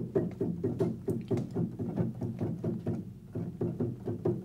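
Piano notes played one after another in an even run down the keyboard, about four to five notes a second, each note starting cleanly, played to show the keys now sounding as they should.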